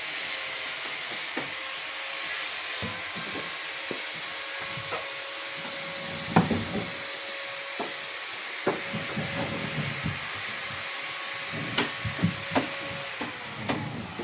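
Steady hiss with a faint steady hum that cuts off near the end, with scattered light knocks on wood throughout.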